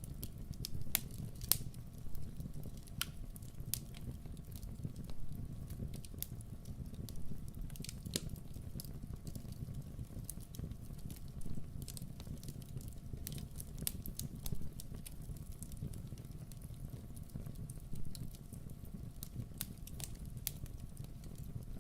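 Campfire burning: wood crackling and popping in irregular sharp snaps over a steady low rumble of flames.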